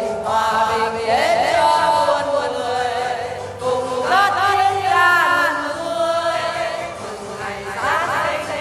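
Choir singing a Vietnamese Christmas song, long held notes with vibrato and sliding phrase openings.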